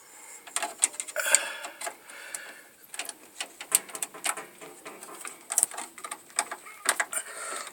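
Irregular clicks, taps and scraping of a hand tool and wires being worked in an electrical panel, as a wire is fastened to a breaker.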